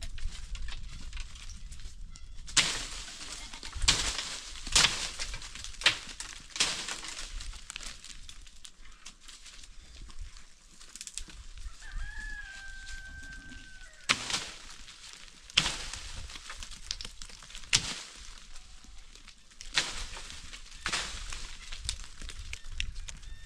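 Crunching steps on loose stony ground, roughly one a second. A rooster crows once, a single long held call, about halfway through.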